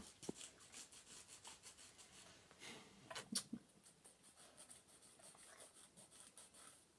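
Faint, rapid scraping strokes, several a second, from a hand tool working a Weimaraner's toenail during nail trimming, with a few sharper clicks.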